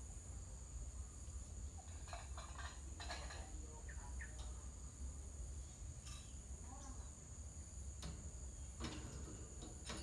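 A steady high-pitched drone of insects, with short bird chirps scattered through, clearest around two to three seconds in and again near six and nine seconds, over a low rumble.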